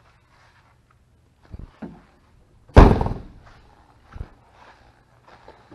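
Side door of a 1996 Mitsubishi Pajero Mini slammed shut a little under halfway through: one loud slam with a short ringing tail. Two lighter knocks come just before it and a softer thump follows about a second and a half later.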